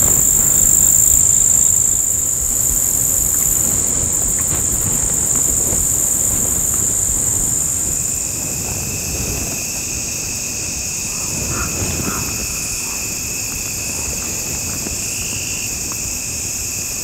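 Steady high-pitched insect chorus. About eight seconds in, a second, lower-pitched insect buzz joins in and carries on.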